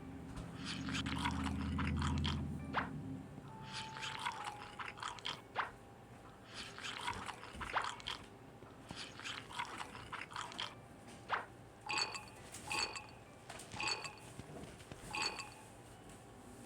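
Close-miked eating: wet mouth clicks, smacks and crunches from chewing, coming in quick irregular runs. A low droning tone sounds for the first three seconds.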